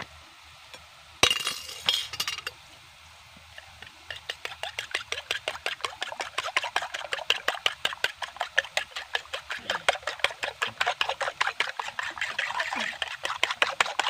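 Raw eggs being beaten with a metal fork in a clay bowl: quick, even clinks of the tines against the bowl, about five a second, starting about four seconds in. A brief loud clatter comes just over a second in.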